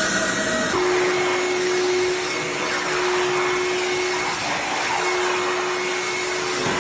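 Floor-sanding equipment running steadily with its motor and dust-extraction vacuum, a loud motor whine over a rushing noise. The whine jumps abruptly to a lower pitch under a second in.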